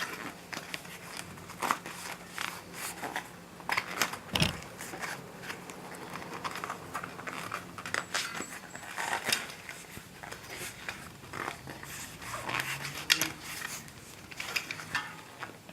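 Bicycle inner tube being pushed by hand into the tyre around the wheel: irregular rustling and small clicks of rubber handled against the tyre and rim, with one sharper knock about four seconds in.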